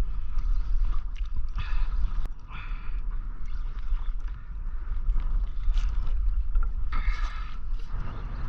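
Spinning fishing reel being cranked in short spells, a whirring about two seconds in and again near the end, as a hooked fish is reeled in. Wind rumbles steadily on the microphone throughout.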